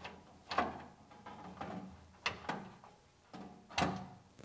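Knocks and scrapes on the sheet-metal upper wheel cover of a DoALL band saw as a round speed-selection chart is pressed and fitted into place by hand: a handful of sharp knocks with brief ringing, the loudest near the end.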